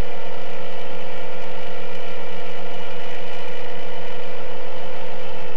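Seven-inch long-range FPV quadcopter in flight: its brushless motors and propellers make a steady, loud multi-tone whine, heard from on board. The main tone dips slightly in pitch near the end as the throttle eases.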